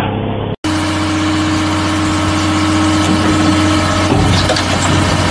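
An engine running steadily at idle, a low even drone. A deeper rumble comes in about four seconds in.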